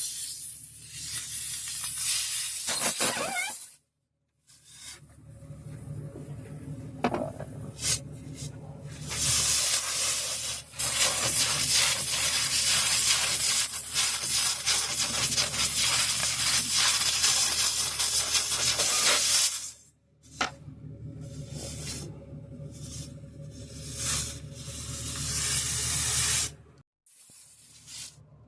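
Compressed air hissing in several stretches while a car tyre is worked on for a broken valve stem and a nail, over a low steady hum. The longest hiss starts about ten seconds in and runs for about ten seconds.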